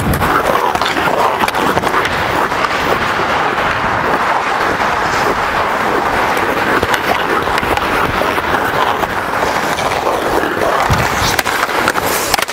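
Hockey skate blades scraping and carving on rink ice, heard close up through a microphone worn by the skater, with scattered sharp clicks of the stick on the puck.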